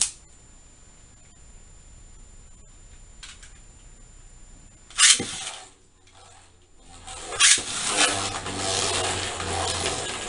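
Beyblade Burst tops launched into a plastic stadium: a sharp rip of the launcher about halfway through, another sharp burst a couple of seconds later, then spinning tops whirring and scraping against the plastic bowl.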